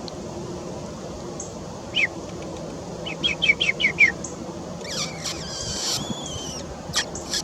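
Songbirds singing and calling: a single down-slurred whistled note, then a quick run of about six short, down-slurred notes a little past three seconds in. A harsh, buzzy call follows around five seconds in, and a few sharp chips come near the end.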